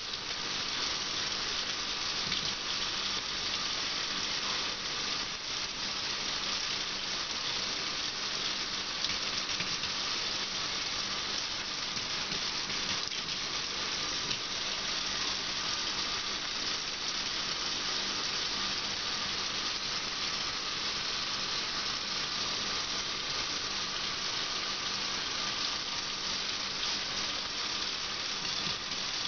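Kitchen mixer tap running a thin, steady stream of water into a stainless steel sink: a constant, even hiss and splash of water on the metal basin.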